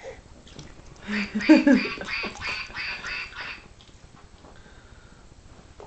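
A bath toy duck quacking in a fast, even series of about three to four quacks a second, stopping about three and a half seconds in. A short voice sounds under the quacks about a second and a half in.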